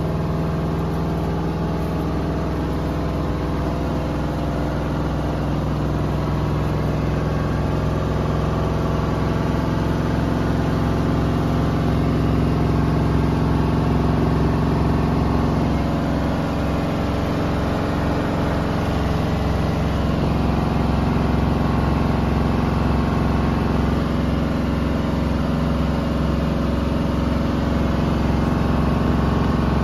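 Bosch VarioPerfect washing machine (WAT28371GB) with its EcoSilence Drive brushless motor turning the drum in a service-mode spin with a very unbalanced load: a steady motor hum.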